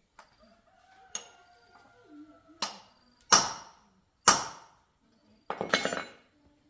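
Metal tools and parts knocking and clinking on a workbench during motorcycle carburetor work: about five sharp, ringing knocks, then a brief rattle near the end.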